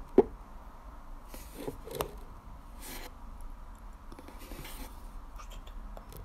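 Quiet room with handling noise close to a phone's microphone: one sharp knock just after the start, softer taps about two seconds in, and a few short breathy hisses.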